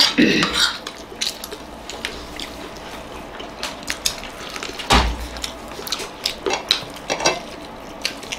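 Metal spoon and fork clinking and scraping against ceramic plates, in scattered light clicks, with one heavier knock about five seconds in.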